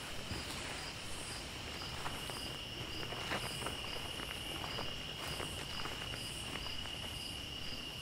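Night insects calling: a steady high cricket trill, with a fainter pulsing call above it a few times a second and a higher pulse about once a second. Scattered light footsteps on the forest floor.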